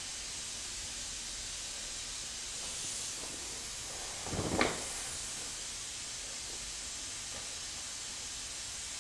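Steady background hiss, with a brief rustle and knock a little after halfway as the resin-wet, carbon-fibre-covered mould is turned by gloved hands.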